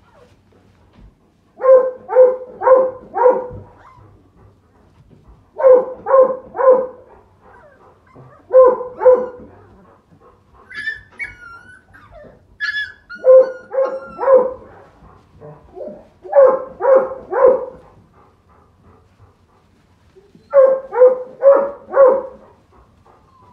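A dog barking repeatedly, in bursts of two to four barks every few seconds, with a few high, wavering whines near the middle.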